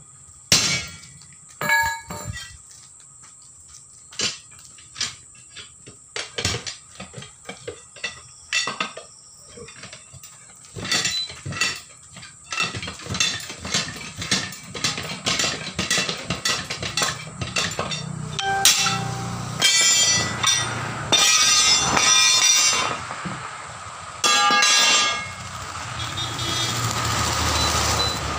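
Sledgehammer blows on a truck tyre and its steel rim as the bead is broken by hand, followed by a long run of metallic clinks and knocks from tyre levers working the bead off the rim. In the last few seconds a passing vehicle grows louder.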